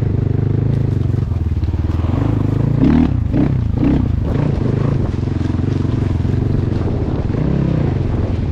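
Vehicle engine running steadily, its pitch rising and falling about three to four seconds in, with scattered knocks and clatter.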